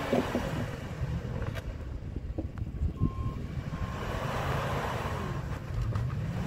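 Tow truck's engine running under load as the truck tries to drive out of deep snow where it is stuck, revving up in the last couple of seconds.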